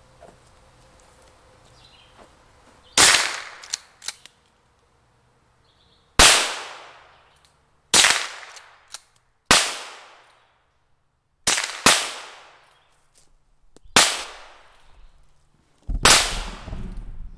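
.22 rimfire lever-action rifle fired about seven times, a few seconds apart, each a sharp crack with a short fading tail, with small clicks between some shots.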